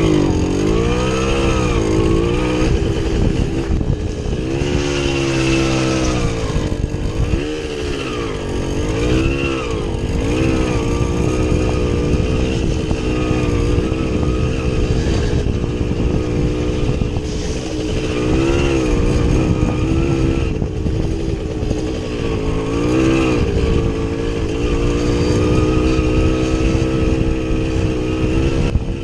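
Small two-stroke motorcycle engine under way off-road. It revs up and down repeatedly for the first ten seconds or so, then runs at a fairly steady pitch.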